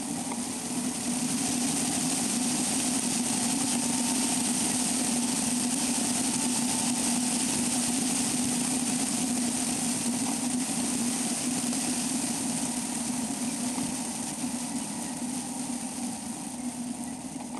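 A vehicle's engine and road noise picked up by a camera mounted outside on the roof: a steady drone with an even hiss of wind and tyres.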